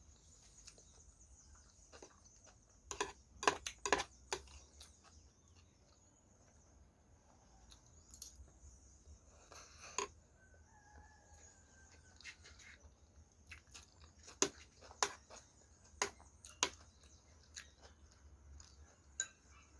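Eating sounds: scattered clicks and taps of a utensil against a plate, mixed with chewing on curried oxtail and pork bones, over a steady high hiss. A faint, drawn-out rooster crow comes about ten to twelve seconds in.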